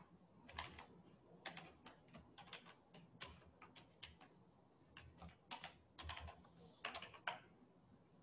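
Faint typing on a computer keyboard: irregular clusters of keystrokes with short pauses between them.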